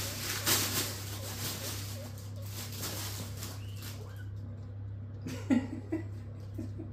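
Guinea pigs shuffling in hay bedding, with a few short calls a little after five seconds in, over a steady low hum.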